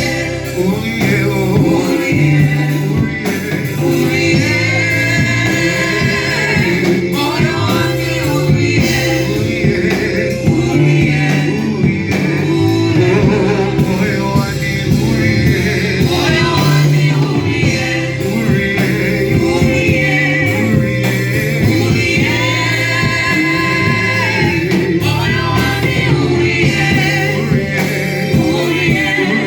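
Gospel worship song: voices singing over a steady instrumental accompaniment.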